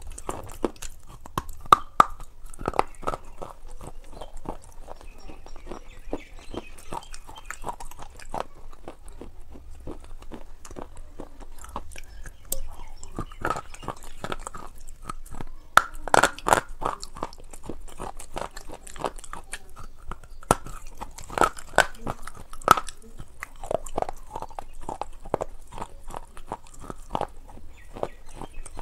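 A person biting and chewing something crunchy close to a clip-on microphone, with irregular sharp crunches that come thickest about halfway through and again a little after two-thirds of the way in.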